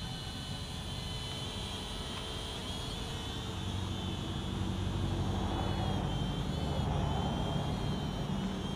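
Eachine E58 pocket quadcopter's small coreless motors and propellers whining steadily in flight, the pitch wavering slightly as the throttle changes. A low rumble underneath grows louder about halfway through.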